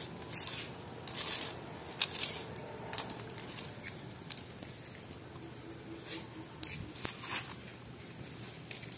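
A fire of burning dry coconut shells, crackling faintly with a handful of sharp, irregular pops.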